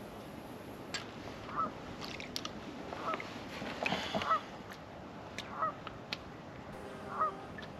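Geese honking, a string of short calls roughly a second apart and bunched together about four seconds in, with a few sharp clicks among them.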